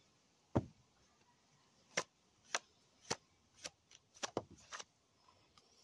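Tarot cards being shuffled and handled by hand: a string of sharp card slaps and taps, irregularly spaced and coming quicker after the halfway point.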